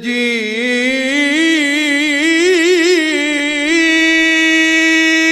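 A man's voice chanting one long held note of a recited poem. The note climbs in its first second or so, wavers through a quick ornamented run around the middle, then holds steady.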